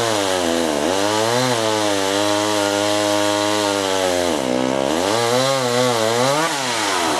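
Gas chainsaw cutting through a tree trunk: its engine runs continuously, the pitch sagging a few times under load as the chain bites into the wood and picking back up between dips.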